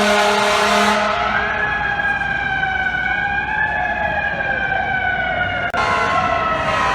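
Fire truck air horn blast that stops about a second in, giving way to a siren wail that slowly rises and then falls in pitch. Near the end the sound changes abruptly to steadier tones.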